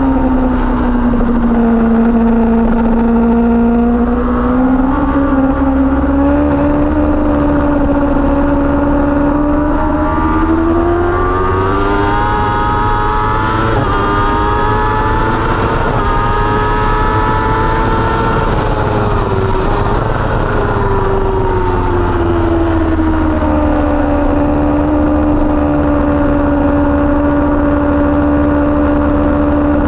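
Kawasaki ZX-10R's inline-four engine running hard, heard onboard over steady wind rumble. The engine note dips in the first couple of seconds and holds lower. About ten seconds in it climbs as the bike accelerates, stays high for several seconds, then falls away around twenty seconds in as the bike slows, and settles at a steady pitch.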